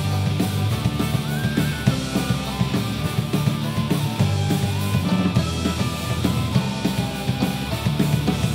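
Celtic punk band playing live: electric guitar, bass and a driving drum-kit beat, with a fiddle carrying a sliding melody on top.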